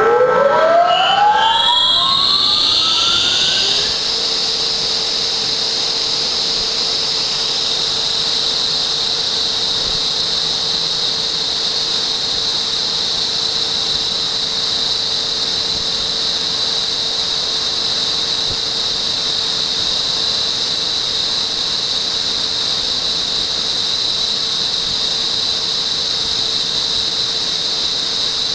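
Large electric motor driving a water booster pump through a MagnaDrive magnetic coupling, its whine rising in pitch over the first few seconds as it spins up. It then runs at speed with a steady high-pitched whine over a hiss.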